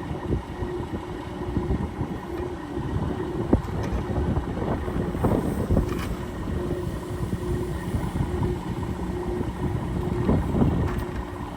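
A vehicle engine running steadily with a low rumble, and wind buffeting the microphone.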